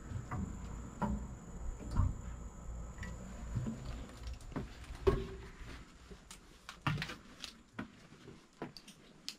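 Irregular knocks, taps and footsteps of someone handling a metal locomotive cab door and stepping into the cab, the loudest knock about five seconds in. A low rumble underneath fades out about six seconds in.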